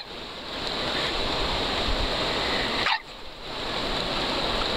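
Steady rush of river water flowing over rocks. The level drops briefly at the start and again about three seconds in.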